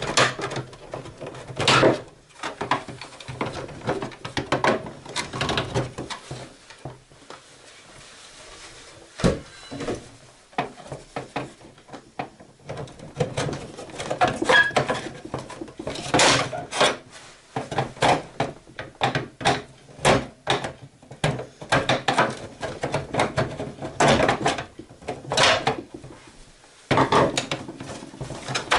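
Keyboard organ's casing being pried and worked open by hand with a tool: irregular clicks, knocks and scraping of its parts, with a quieter stretch a few seconds in.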